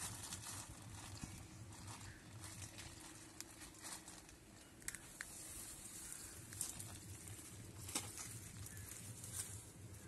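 Faint rustling of a plastic bag being handled, with a few short sharp crinkles in the second half, over a low steady background hum.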